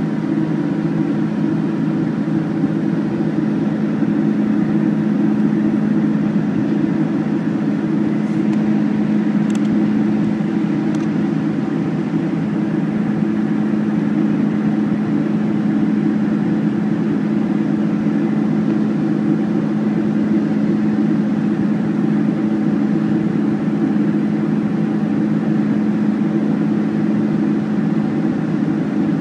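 Boeing 747-400 jet engines and airflow heard from inside the cabin in flight after takeoff: a steady, unchanging drone with a low hum. A few faint short clicks come about a third of the way in.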